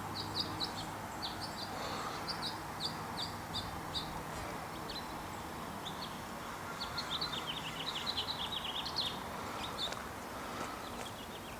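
A small songbird singing: a run of about ten short, high chirps at a steady pace, then after a pause a faster, more jumbled series of chirps.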